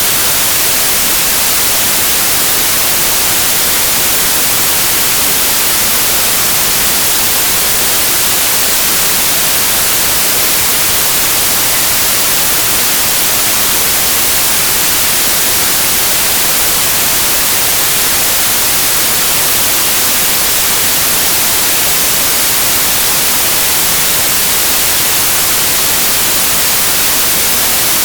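Continuous white noise: a loud, steady, even hiss, strongest in the high end and unchanging throughout.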